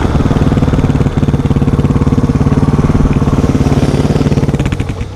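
Suzuki DR350's single-cylinder four-stroke engine running at low revs with a rapid, even pulse as the bike rolls to a stop, easing off slightly near the end.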